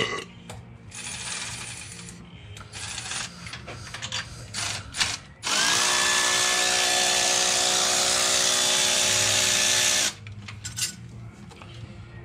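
A handheld electric power tool spins up and runs steadily for about four and a half seconds, then stops abruptly, with the motor's whine over a hiss. It is most likely spinning out a spark plug. Before it come scattered clinks and clatter of tools being handled.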